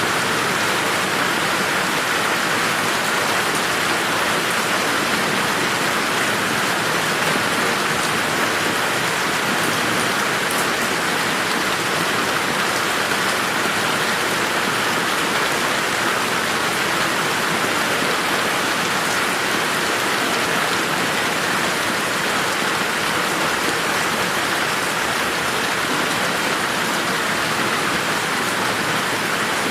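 Steady rain falling on a garden, a dense even patter of drops with no thunder.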